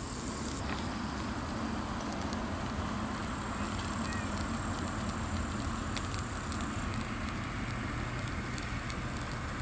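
Pork ribs sizzling on the grate of a small charcoal grill over hot briquettes: a steady hiss with scattered faint crackles, over a steady low rumble.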